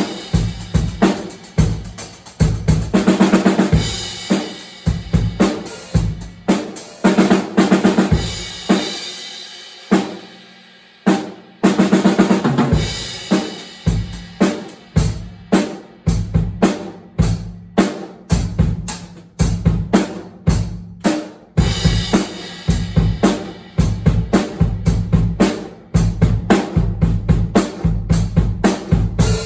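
Drum kit played in a steady beat, stopping briefly about ten seconds in and then starting again.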